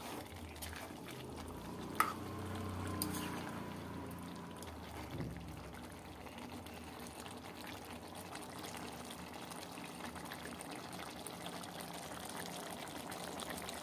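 A ladle stirring a wet chicken curry in a steel pan on the stove, the gravy sloshing and simmering on middle flame. The ladle knocks sharply against the pan twice, at the start and about two seconds in; after that only a faint, steady simmer remains.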